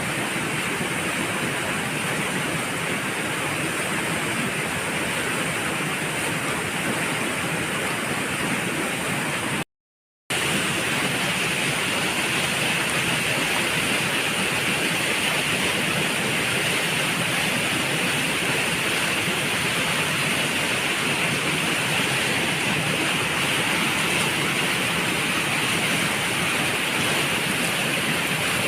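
Waterfall rushing steadily, a dense even roar of falling water, with a half-second cut to silence about ten seconds in.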